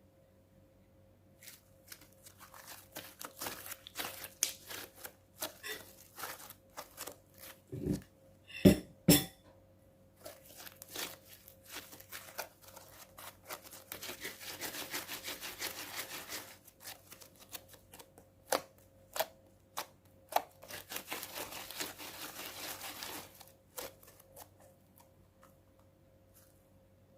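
Clear-glue and borax slime being worked by hand: a run of sticky clicks and pops, with a few louder knocks about eight seconds in and two longer stretches of dense crackling about halfway and near the end.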